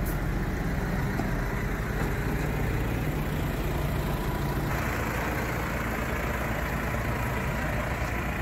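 Diesel tractor engine idling, a steady low rumble, with a fuller, rougher noise in the middle range coming in about halfway through.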